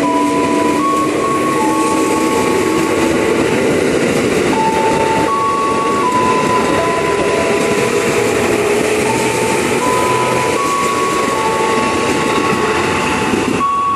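A twelve-car JR 205 series electric commuter train running past on the rails, with steady wheel and rail noise the whole time. Over it sit thin high whining tones that step from one pitch to another every second or two.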